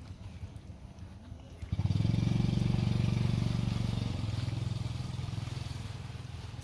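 A motor vehicle's engine starts up loud about two seconds in, runs steadily, then slowly fades.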